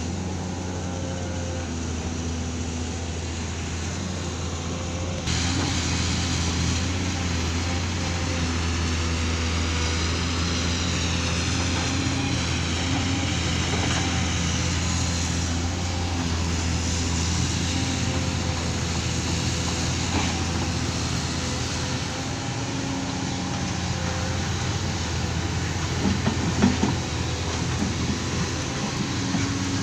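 A heavy engine running steadily with a low hum. About five seconds in, a louder, hissing noise comes in suddenly, and a few knocks sound near the end.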